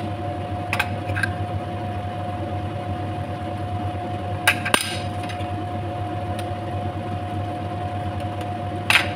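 A spoon and wooden spatula knock and scrape a few times against a pan of thick chicken stew, loudest about halfway through and again near the end, over a steady mechanical kitchen hum.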